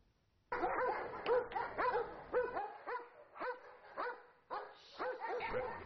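German Shepherd police dogs barking: a regular run of short barks, about two a second, starting about half a second in.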